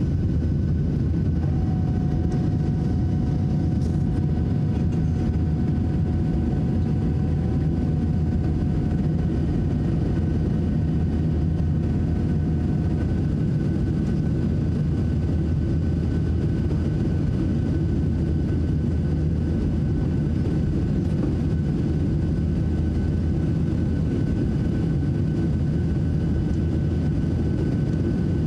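Steady cabin noise of a Boeing 737-700 in flight: a constant low rumble from its CFM56-7B jet engines and the airflow, with a faint steady whine on top and a second faint tone for the first dozen seconds.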